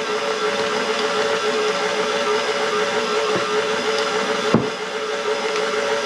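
Electric mixer's motor running steadily while kneading sourdough bread dough, with one short knock about four and a half seconds in.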